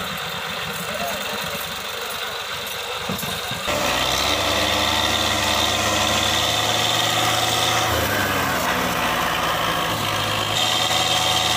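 Tractor diesel engine running. About four seconds in, the sound cuts to a louder, steady engine note from another tractor, with slight changes in pitch near the eight-second mark and again near the end.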